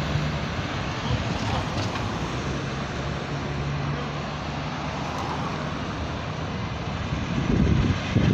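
Street traffic: cars driving through an intersection close by, a steady hum of engines and tyre noise on the road. It grows louder near the end as another vehicle comes closer.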